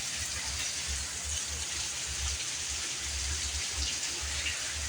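Heavy rain pouring steadily, an even hiss of drops with no break or thunderclap.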